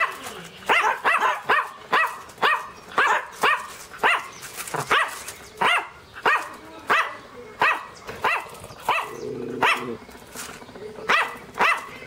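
Small dog barking over and over in short, high-pitched barks, about two a second. The barking breaks off briefly about nine seconds in, then two more barks follow.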